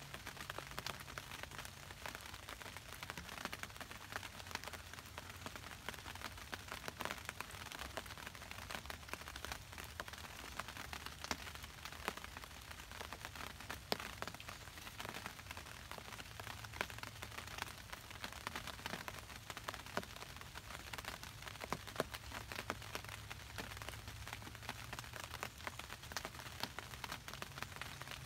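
Steady patter of light rain, many tiny crackling drops, with a faint low hum underneath.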